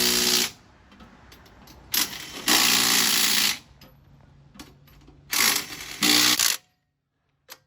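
A handheld power tool run in about five short bursts, each half a second to a second long, with pauses between them.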